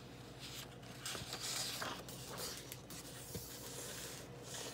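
Page of a hardcover picture book being turned by hand: a papery rustle and swish, loudest about a second and a half in.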